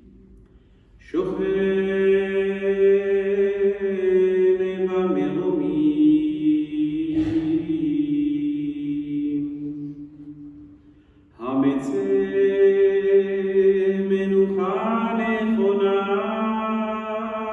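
A lone man's voice chanting a Hebrew funeral prayer in long held notes that step from pitch to pitch. It comes in two long phrases, each after a short breath pause, the first about a second in and the second about two-thirds of the way through.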